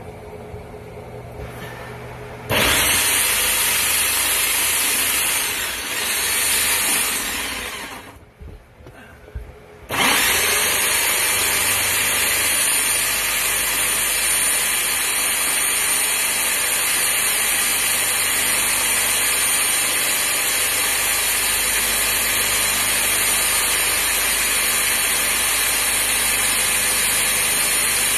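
Bauer 1695E-B 13-amp corded right-angle drill boring a 2 1/8-inch hole through wood, with a high motor whine. It starts about two and a half seconds in, slows briefly under load and stops. About ten seconds in it spins back up and then runs steadily, cutting.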